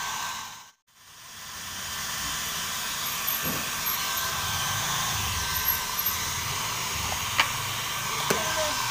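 Handheld electric hair dryer blowing steadily, drying a wet kitten after its bath. The sound drops out briefly about a second in and builds back up, with a couple of small clicks near the end.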